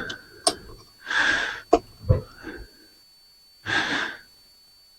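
A man breathing heavily close to the microphone: two long, breathy breaths, about a second in and again near four seconds in, with a few sharp clicks of parts being handled.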